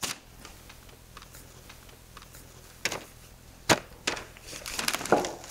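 A few sharp knocks and clicks from handling a whole lamb carcass on a metal spit on a worktable, the loudest a little under four seconds in, over a faint room hum.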